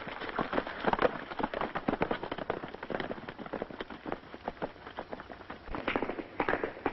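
Hoofbeats of several galloping horses, a dense, irregular clatter with no let-up.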